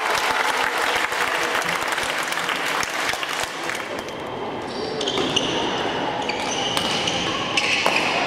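Badminton doubles play in a large hall: sharp racket strikes on the shuttlecock and shoes squeaking on the court floor, over the noise of play on neighbouring courts.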